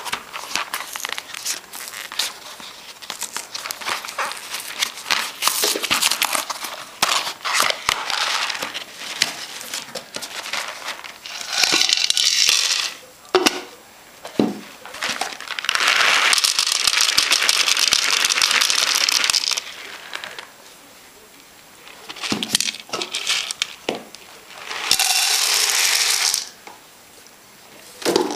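A cardboard box of dry cat food rustling and crinkling as it is handled and opened, then dry kibble poured out of it into a bowl in three rushes, the longest about three and a half seconds, with a few small knocks between them.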